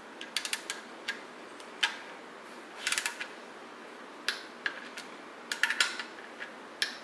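Click-type torque wrench ratcheting in short runs of quick ticks, with single sharper clicks in between, as bolts are brought up to 30 foot-pounds.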